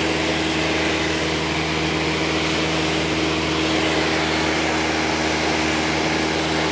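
Steady drone of a high-wing light airplane's engine and propeller in level flight, heard from inside the cabin, with an even hiss of rushing air over it.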